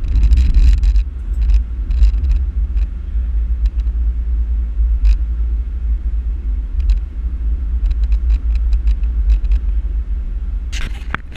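Car driving at highway speed, heard inside the cabin: a steady low rumble of road and engine noise, with scattered light ticks and a short louder burst of noise near the end.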